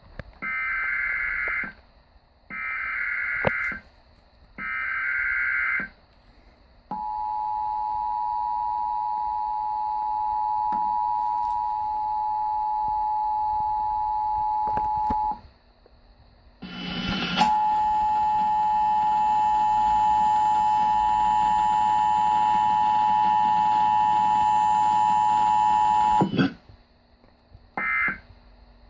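Emergency Alert System required monthly test signal. Three short bursts of digital header data, then the steady two-tone attention signal (853 and 960 Hz) for about eight seconds. After a brief gap the two tones return louder and harsher over a hiss for about ten seconds and cut off, and near the end the first two of three short end-of-message data bursts sound.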